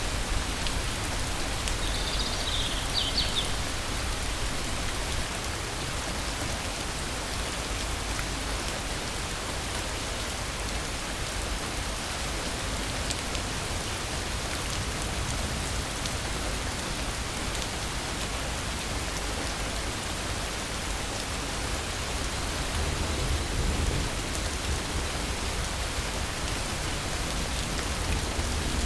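Steady rain falling, an even hiss with a low rumble underneath that swells slightly a little over twenty seconds in. A brief faint high chirp sounds about two seconds in.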